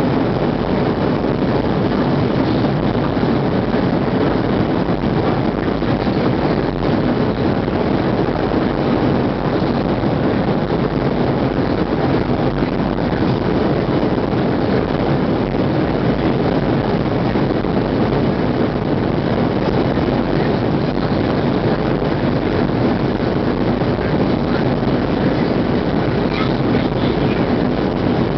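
Steady cabin noise inside a Boeing 737-700 in flight: the even rumble and rush of its CFM56-7B engines and the air streaming past the fuselage, unchanging throughout.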